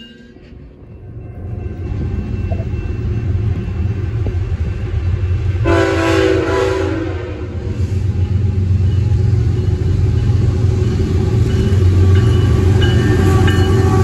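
BNSF freight train's diesel locomotives approaching with a low rumble that builds steadily. The air horn sounds once for about a second and a half, some six seconds in. The rumble is loudest near the end as the locomotives come past.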